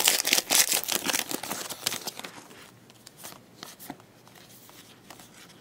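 Trading-card pack wrapper crinkling in the hands for the first two seconds or so, then a few soft clicks of cards being slid and flipped through.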